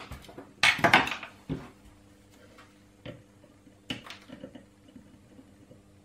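Clattering knocks and clicks of small hard objects handled on a workbench, the loudest cluster about a second in and lighter clicks around the middle: a small circuit board being worked in the plastic clamps of a PCB holder.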